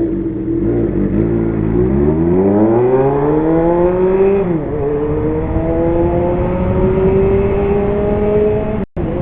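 Kawasaki Zephyr 750's air-cooled inline-four engine, breathing through an MRS aftermarket muffler with a swapped, louder inner silencer, pulling under acceleration. The revs climb, drop with an upshift about four and a half seconds in, then climb more slowly again. The sound cuts out for a moment near the end.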